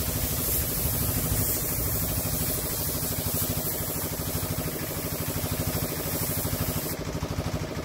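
Air compressor running steadily with a rapid low chugging, under the hiss of a spray gun laying on base coat; the spray hiss cuts off about seven seconds in while the compressor keeps running.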